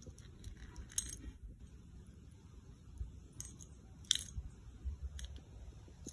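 Scattered sharp clicks and taps of a plastic disposable lighter being batted across stone floor tiles and bitten by kittens. The loudest tap comes about four seconds in.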